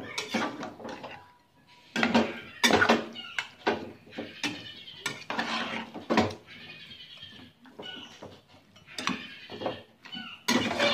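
Metal spatula scraping and clanking against a nonstick wok as pieces of chicken are stirred and turned, with the loudest knocks about two seconds in. An animal's calls are heard between the strokes.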